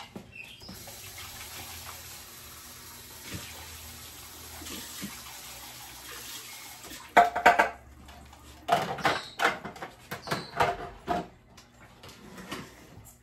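Water running steadily for about six seconds, then a run of clatters and knocks as dishes or containers are handled.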